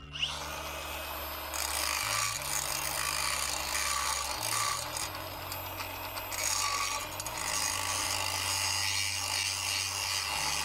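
Angle grinder with a grinding disc spinning up with a rising whine, then grinding steadily into the steel of an exhaust bolt to take its head off.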